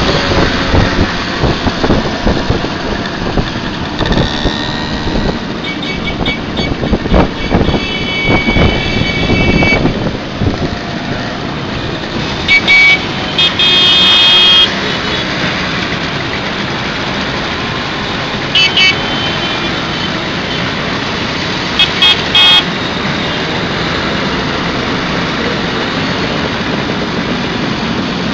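A convoy of two-stroke Simson mopeds running along the road, with engine and wind noise throughout. Horns beep repeatedly over it, with one loud longer toot about halfway and short beeps later.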